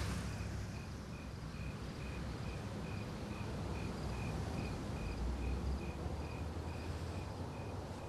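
Cricket chirping faintly and evenly, about two chirps a second, over a low hum.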